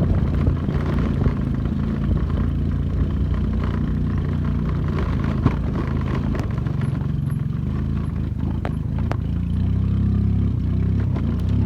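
Suzuki Access 125 scooter's single-cylinder engine running steadily while riding a rough track, with scattered clatters and knocks; the engine note gets a little louder near the end.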